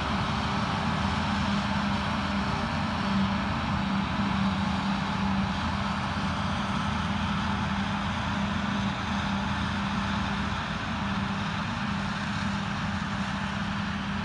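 Claas forage harvester and a tractor running at working speed while lifting grass for silage: a steady machine hum with a constant low drone.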